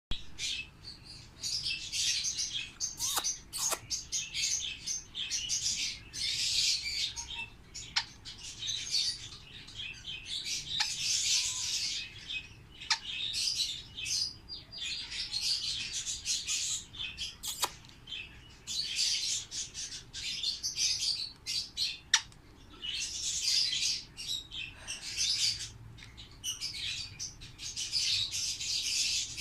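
Pet parrots chattering and chirping in repeated high bursts a second or few long, broken by short pauses, with occasional sharp single chirps.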